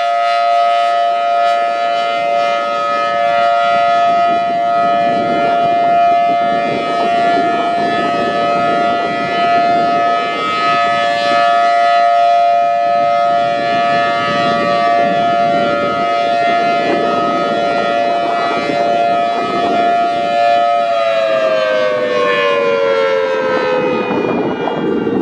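Federal Signal Thunderbolt 1000T outdoor warning siren sounding its steady alert tone, which starts to fall in pitch about 21 seconds in as the siren winds down. Wind buffets the microphone.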